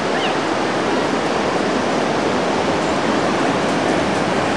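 Ocean surf breaking on a sandy beach: a steady, even wash of noise that does not let up.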